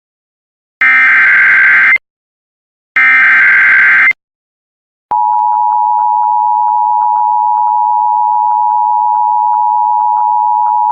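Emergency Alert System SAME header, the digital data bursts that start an alert: the last two of its three repeats, each about a second long, a second apart. After a short silence, the EAS two-tone attention signal comes in about five seconds in and holds steady.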